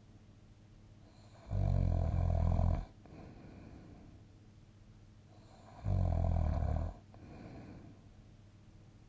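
A person snoring in sleep: two loud snores about four seconds apart, each a little over a second long, with quieter breathing between them.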